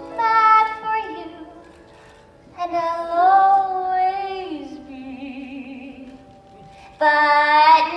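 A woman's voice singing long, held wordless notes, three or four of them with gaps between, sliding up in pitch about three seconds in and back down about a second later.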